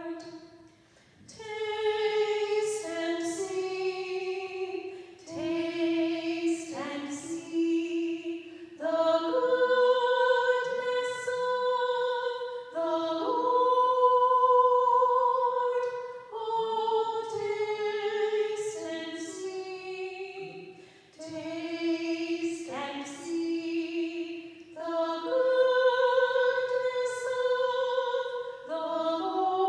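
Church organ accompanying a woman singing a hymn, in phrases of a few seconds each with short breaks between them.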